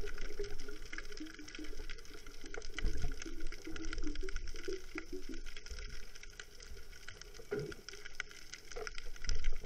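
Muffled underwater sound recorded by a submerged camera: water moving around the camera, with a few low thumps and a faint steady hiss.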